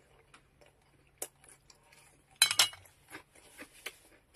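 Chopsticks set down against a small stainless steel bowl: a quick cluster of sharp clinks about halfway through, amid a few faint small clicks.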